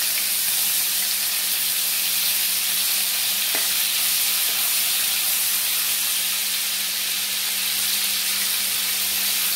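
Paneer cubes shallow-frying in ghee in a kadhai, a steady sizzle as they are stirred with a slotted spoon. There is one light click of the spoon about three and a half seconds in.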